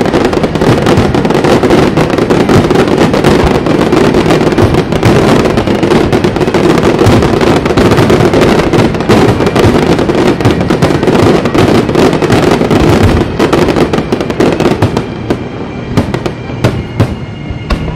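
Aerial fireworks going off in a dense, rapid barrage of bangs and crackling, which thins to separate bangs about fourteen seconds in.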